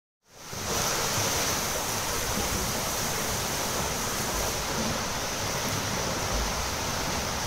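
Steady wash of splashing from many swimmers doing front crawl laps in an indoor pool.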